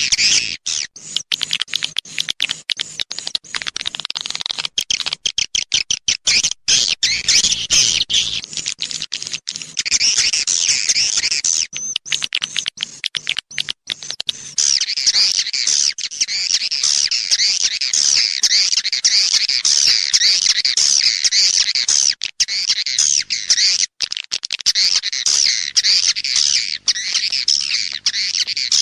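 Swiftlets twittering: a dense, fast chatter of many high chirps, chopped by many short breaks in the first half and unbroken after that. It is a swiftlet lure call track, the 'mating season' call played to draw swiftlets into a nest house.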